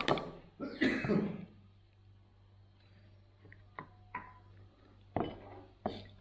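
A person coughing twice in the first second and a half, followed by a few short knocks.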